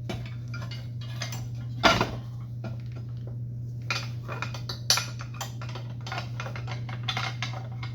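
Metal chop-saw parts being handled and fitted by hand: light clinks and scrapes, with a louder clank about two seconds in and another about five seconds in, over a steady low hum.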